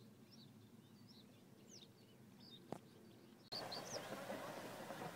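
Faint outdoor ambience with small birds chirping now and then. About three and a half seconds in, the background suddenly becomes louder with a steady rushing noise.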